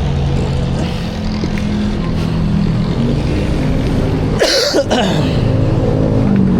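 Yamaha XSR motorcycle with an aftermarket Vmax exhaust canister running under way, its engine note steady with a couple of shifts in pitch. A brief loud hiss cuts in about four and a half seconds in.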